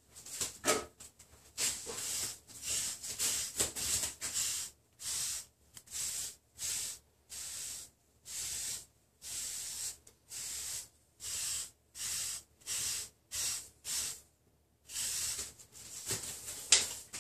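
Stiff-bristled wave brush swept repeatedly over short, close-cropped waved hair: a run of brushing swishes, about one stroke a second, each with a brief gap after it.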